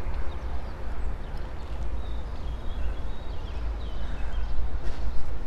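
Wind rumbling on the microphone during a walk, with footsteps on paving and a few faint high bird chirps around the middle.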